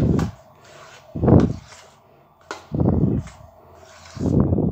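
A spoon stirring dosa batter in a steel bowl as water is mixed in to thin it: four low, short swishes about a second and a half apart.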